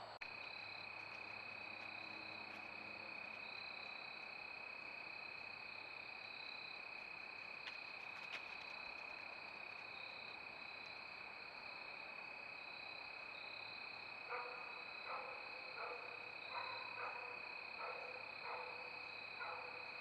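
Steady high-pitched insect trill at dusk, with a faint steady tone under it. From about two-thirds of the way through, a run of short repeated calls, roughly one or two a second, joins it.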